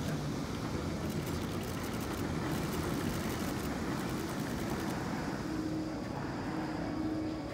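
Hagrid's Magical Creatures Motorbike Adventure roller coaster train running along its steel track, a steady rumble.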